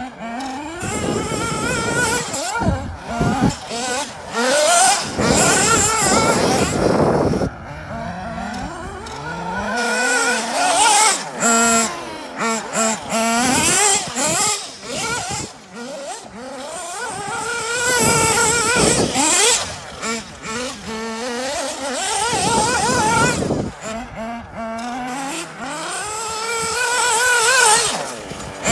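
Kyosho Inferno MP9 TKI4 nitro RC buggy's small nitro engine revving hard and dropping back again and again as the throttle is worked, its high-pitched whine rising and falling.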